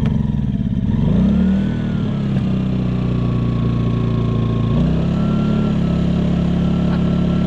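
Sportsman GEN2200DFi inverter generator's small single-cylinder engine running on propane, freshly started on choke for the first time. Its speed wavers in the first couple of seconds, shifts about five seconds in, then holds steady.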